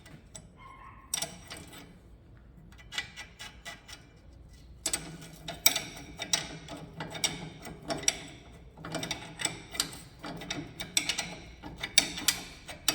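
Hand ratchet wrench clicking in runs as the upper nut of a Chevrolet Spin's front stabilizer link is tightened, the clicks coming thicker and faster in the second half.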